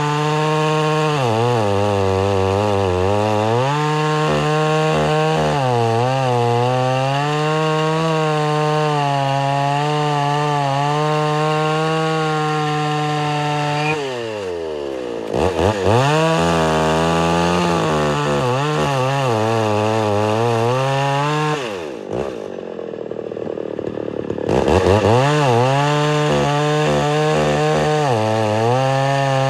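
Homelite Super XL-925 82cc two-stroke chainsaw, its governor blocked off, running at full throttle while cutting a log, the engine pitch wavering as it loads and recovers. About halfway through the engine drops away and quickly revs back up. About two-thirds through it slows for a couple of seconds, then revs back into the cut. The chain cuts slowly because the sharpening is still not aggressive enough.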